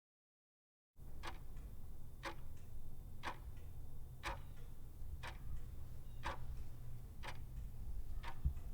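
Sharp ticks, evenly spaced about once a second, over a low steady hum; the first second is dead silent.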